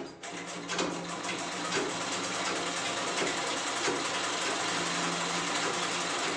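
Black domestic sewing machine running steadily, stitching through layered fabric, with a fast, even run of needle strokes that starts a moment in.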